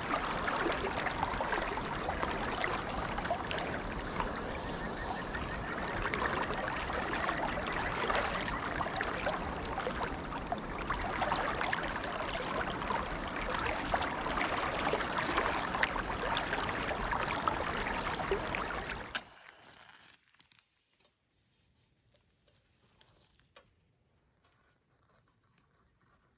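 Mountain stream water rushing steadily, cutting off abruptly about 19 seconds in, after which there is near silence.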